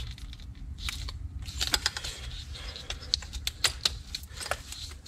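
Irregular small clicks and rattles of plastic wiring-harness connectors being handled and fiddled with, over a faint steady low hum.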